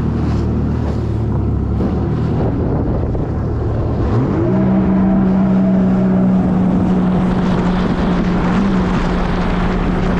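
Jet ski engine running at low speed, then about four seconds in the throttle opens and its pitch climbs quickly to a steady, higher drone that holds. Wind buffets the microphone and water rushes throughout.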